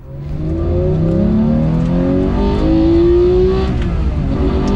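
Porsche 991 GT3's naturally aspirated 4.0-litre flat-six engine accelerating hard, its pitch climbing in steps, then easing off near the end.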